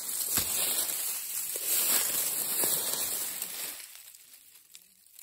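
Dry grass, dead leaves and twigs rustling and crackling as something pushes through them, with scattered sharp snaps. It fades out about four seconds in.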